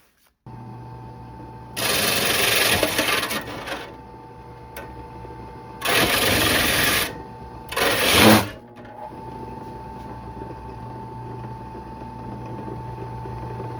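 An old Sears Craftsman 8-inch drill press motor starts about half a second in and runs with a steady hum. Three times the bit is pressed into the toolbox and grinds loudly: once for about two seconds, once for about a second, then briefly. The bit is working loose in the chuck and walking around instead of cutting cleanly.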